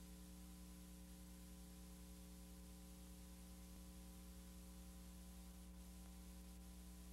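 Near silence: a faint, steady electrical hum with a soft hiss underneath, the noise floor of a VHS tape transfer.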